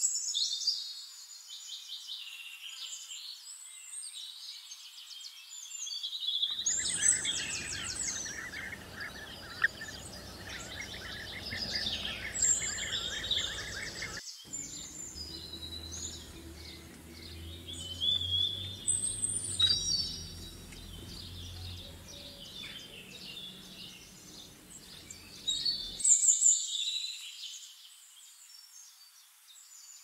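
Wild birds chirping and trilling, several calls overlapping, over outdoor background noise that changes abruptly three times as the recording switches.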